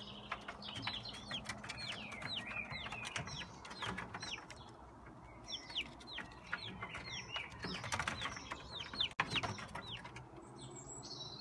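Several young chicks peeping: a steady stream of short, high peeps, each sliding down in pitch, with a few light taps mixed in.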